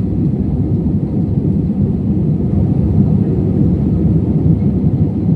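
Steady low rumble of an airliner's engines and airflow, an even roar without breaks.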